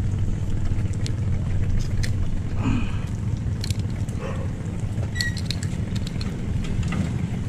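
A steady low engine rumble, with faint clicks of tackle and fish-grip pliers being handled over it.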